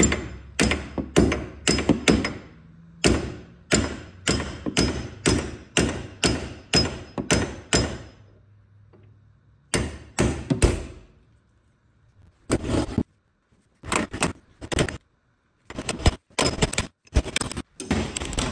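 Steel hammer blows on a ball joint separator, driving its fork between the upper wishbone ball joint and the rear hub upright to split the joint. Sharp metallic strikes about two a second for the first eight seconds, then after a short pause a few single blows and a quicker run of strikes near the end.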